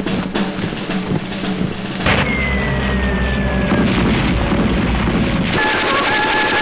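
Battle sound effects: a dense run of gunfire and blasts, then a falling whistle and a deep explosion rumble about two seconds in. Steady high held tones join near the end.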